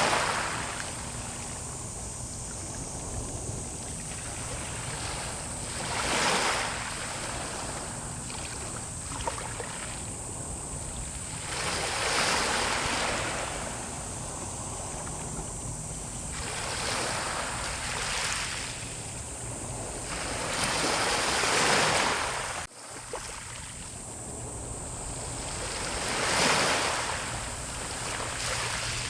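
Sea waves surging and breaking on the shore, swelling loudly about every four to six seconds over a steady wash of surf, with wind on the microphone. A short dropout comes about 23 seconds in.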